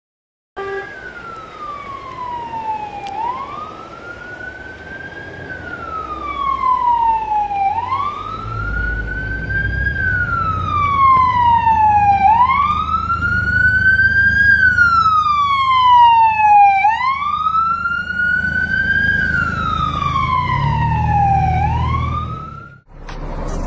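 Ambulance siren in wail mode: a tone that rises quickly, then slides down over three or four seconds, repeating about five times and growing louder as the vehicle nears. Engine and road rumble sit underneath, and the siren cuts off abruptly near the end.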